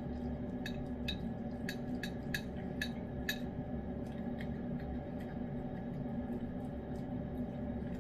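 A cat licking and eating food off a wooden spoon: a run of light clicks, about two a second, in the first half, fainter and sparser after, over a steady background hum.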